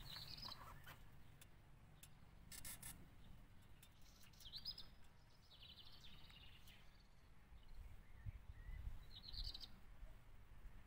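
Faint birdsong: small birds giving short trilled chirps several times over a low background rumble, with a brief rasping noise about two and a half seconds in.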